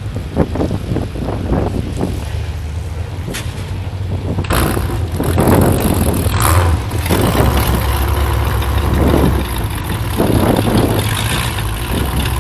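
Demolition derby car engines idling with a steady low rumble, growing louder and fuller about four and a half seconds in.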